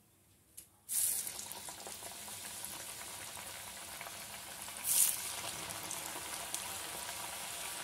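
Rice-flour murukku deep-frying in hot oil in an aluminium kadai, with a steady crackling sizzle. The sizzle starts suddenly about a second in as the first murukku goes into the oil. It surges again about five seconds in as a second murukku is added.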